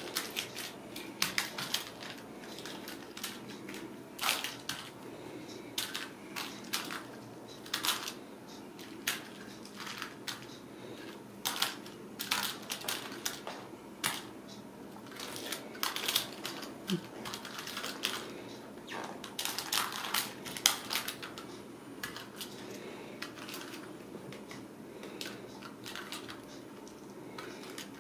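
Irregular light taps, clicks and scuffles of Ragdoll kittens scampering and batting toys about on a rug and wood floor, thinning out near the end, over a steady low room hum.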